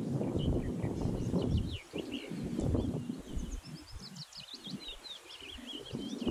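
Wind gusting on the microphone as a low rumble, easing after about two seconds, with small birds singing quick high chirps and trills that grow busier in the second half.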